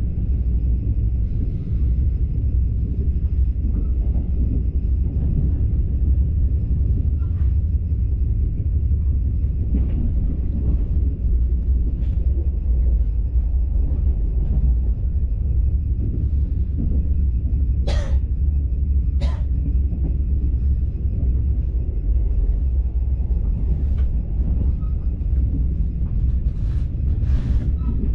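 Steady low rumble of a Mugunghwa-ho passenger train running, heard from inside the carriage. A few short sharp clicks come through, two of them about two-thirds of the way in and a cluster near the end.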